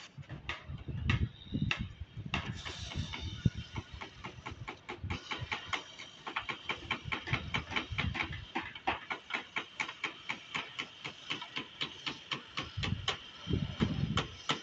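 Hand tools knocking on timber formwork and rebar: rapid sharp taps, about three or four a second, most regular in the second half, with low rumbles near the start and near the end.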